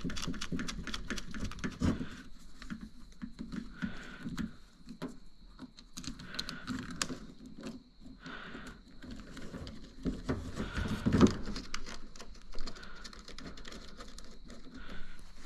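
Irregular light metallic clicks and taps as small M4 bolts and hand tools are handled and the bolts are started by hand into the door handle's locking plate inside a car door.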